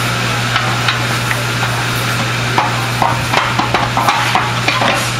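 Light metallic clinks and knocks of aluminium platform sections and pins being handled and fitted together by hand. They come as a quick cluster of short, ringing clicks in the second half, over a steady hum and hiss.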